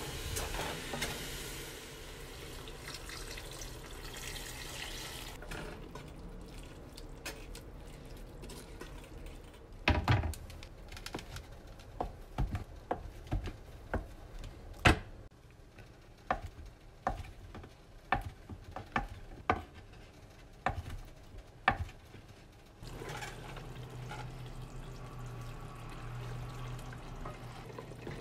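A wooden spatula stirs spinach and spices in a steel pot. Then a Farberware kitchen knife cuts through a block of paneer, knocking on a wooden cutting board about fifteen times at uneven intervals. Near the end a steady low hum comes in.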